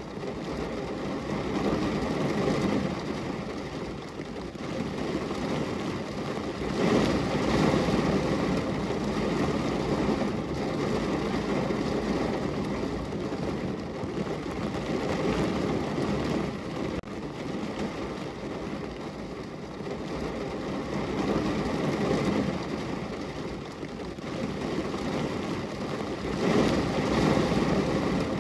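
Steady rain falling on a window pane, an even hiss that swells louder and fades back several times, most strongly about seven seconds in and near the end.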